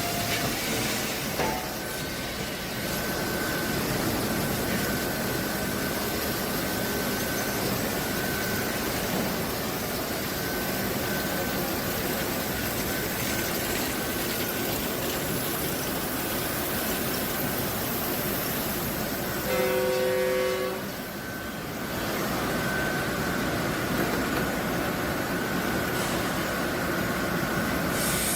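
Power saw cutting timber, a steady running noise with a faint high whine. About twenty seconds in, a short, loud, horn-like tone sounds for about a second.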